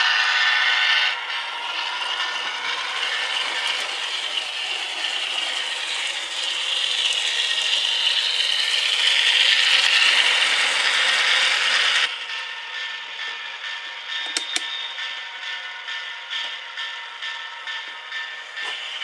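HO-scale Kato EMD AC4400 model locomotive running under DCC, with the whir and rattle of its drive gears mixed with the QSI sound decoder's diesel sounds from a tiny speaker. The sound grows louder over the first ten seconds, drops off suddenly about twelve seconds in, then continues quieter with a regular pulse.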